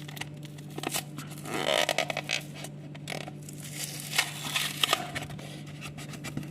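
Blister packaging of a diecast toy car being opened by hand: plastic and card crinkling, tearing and scraping in irregular clicks, loudest for a moment about two seconds in, over a steady low hum.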